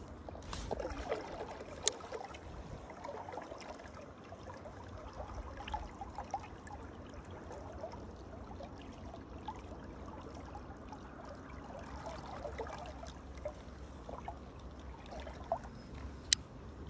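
Shallow river water babbling and trickling over a riffle, with a couple of sharp clicks, one about two seconds in and one near the end.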